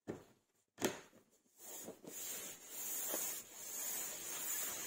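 Two short knocks, the second louder, then several seconds of steady scraping or rubbing on a workpiece.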